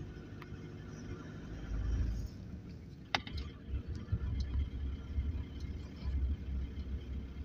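Low rumble of a moving car heard from inside, its road and engine noise swelling about two seconds in, with one sharp click about three seconds in.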